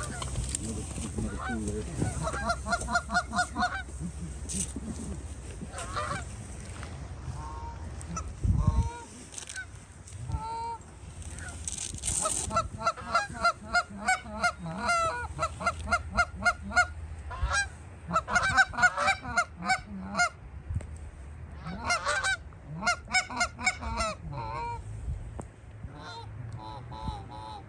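Canada geese honking in repeated series of short rapid calls, several birds overlapping. A low rumble runs through the first nine seconds and ends in a single thump.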